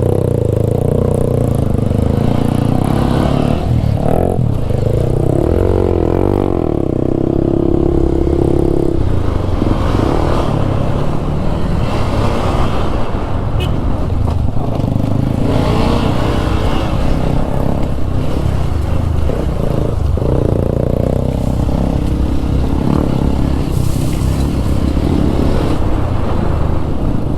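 Single-cylinder motorcycle engine running while riding off-road, its note rising and falling with the throttle, over steady low rumble.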